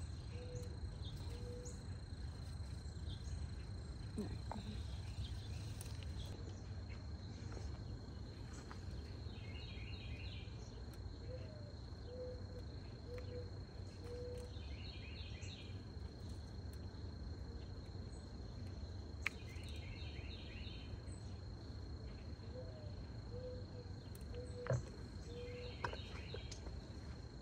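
Outdoor garden ambience: a steady, high insect drone, with a bird calling in short groups of low hooting notes a few times and another bird giving brief chattering phrases about every five seconds. A few sharp clicks sound near the end.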